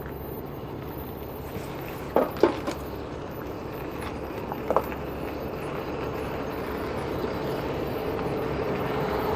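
Tow truck engine running steadily, slowly getting louder, with a few short metal clanks: two about two seconds in and one near five seconds.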